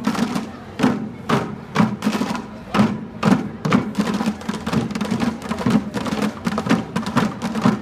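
Drum music with a steady beat, about two strong hits a second.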